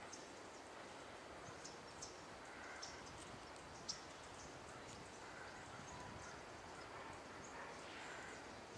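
Faint outdoor ambience with scattered short, high bird chirps at irregular moments; the sharpest comes about four seconds in.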